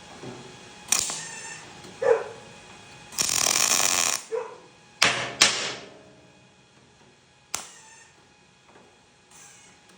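Tack-welding and hammering steel to close a gap: a ringing hammer blow on the metal about a second in, a welding arc crackling for about a second to lay a tack, then more sharp ringing hammer blows, two in quick succession and one more, knocking the steel down.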